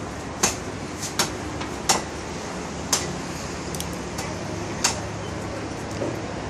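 Spoon and fork clinking against a plate about five times, at irregular intervals, over a steady background hiss.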